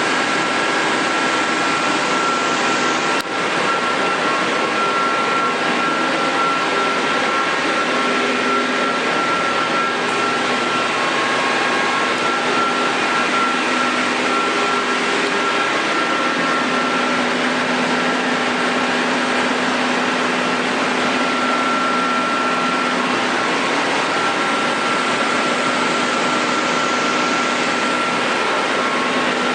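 Amera Seiki T415/1500 CNC lathe running, a steady rushing hum with a constant high-pitched whine over it. There is one brief click about three seconds in.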